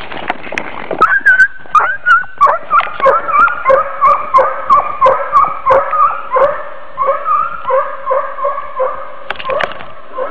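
Hunting dog yelping in rapid, evenly repeated cries, about two to three a second, as it chases a flushed hare: a hound giving tongue on the chase. A rustle of brush and snow comes before the cries begin, about a second in.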